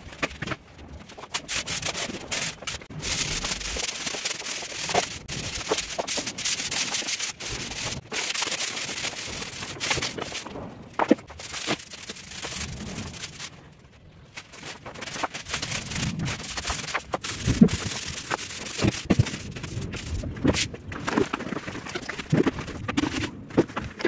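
Straw broom sweeping a tiled floor: repeated scratchy strokes of the bristles, with a short pause about halfway through.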